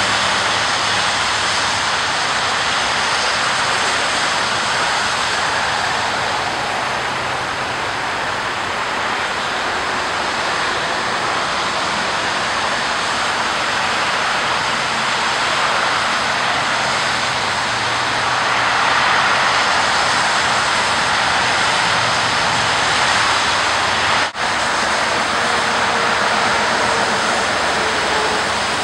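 Rain-swollen creek water rushing steadily, a constant loud rush of noise. It drops out briefly once near the end.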